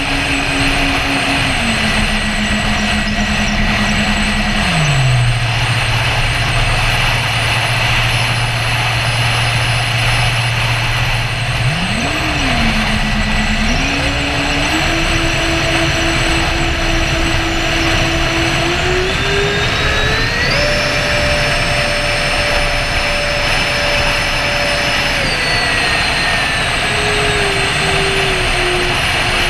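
Twin electric ducted fans of a Freewing A-10 RC jet running in flight, a steady rush of air with a fan whine on top. The whine drops in steps over the first few seconds and holds low, then climbs in steps past the middle to a high pitch and falls back near the end as the throttle is changed.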